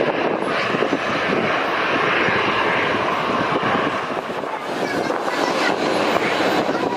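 Jet airliner's engines, a loud steady rushing noise as the aircraft passes on landing.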